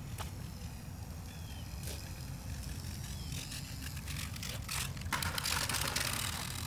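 Small foam RC model plane touching down on concrete, a burst of scraping and rattling about five seconds in as it skids and rolls to a stop, over a low wind rumble on the microphone.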